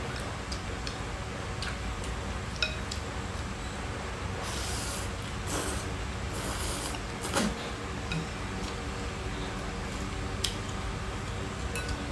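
Noodles being slurped from bowls of soup, a few short slurps through the middle, with light clinks of chopsticks and spoons against ceramic bowls over a steady low hum.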